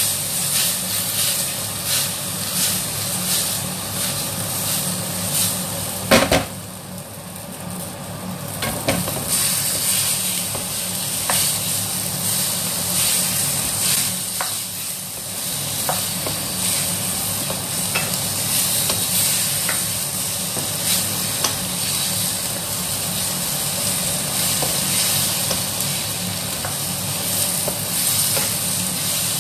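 Snap peas and Chinese sausage sizzling in a frying pan while a spatula stirs and clacks against the pan in quick, irregular strokes. About six seconds in comes one loud knock, after which the sizzle drops for a few seconds before picking up again. A steady low hum runs underneath.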